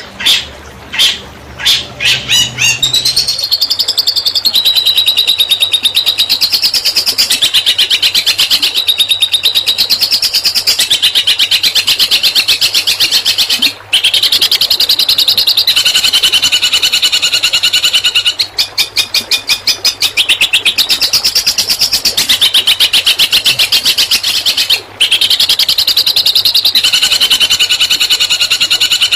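Songbird singing a fast, machine-gun-like trilled 'tembakan' song: a few loud separate chips, then a long, almost unbroken rapid trill that steps between higher and lower pitches every couple of seconds and pauses briefly twice. This is the rapid-fire song used in masteran recordings to tutor long-tailed shrikes.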